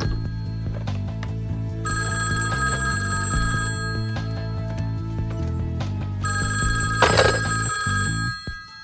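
Old rotary telephone's bell ringing in two long rings of about two seconds each, over film-score music with a stepping bass line. A loud knock comes about seven seconds in, and the ringing and music drop away near the end.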